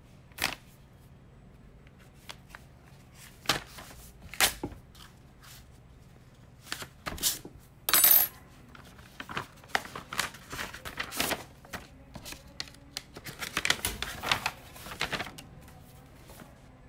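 Paper handling: a sealed bid envelope being opened and the documents inside rustled and leafed through, in irregular crackles and sharp clicks, loudest about eight seconds in.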